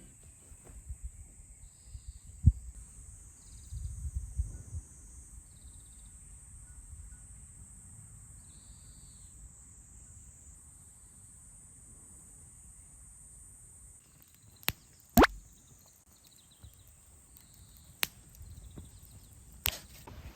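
Outdoor ambience: a steady high-pitched hiss with a few short chirps, broken by several sharp clicks or knocks, the loudest a little after two seconds in and a pair about three-quarters of the way through.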